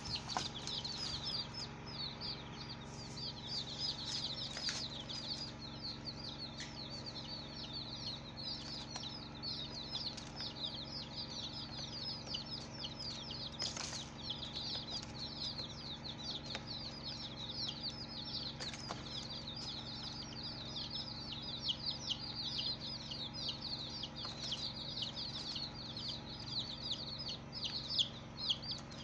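A brood of baby chicks peeping nonstop: many short, high, falling chirps overlapping one another. Under them runs a steady low hum, broken by a few sharp clicks.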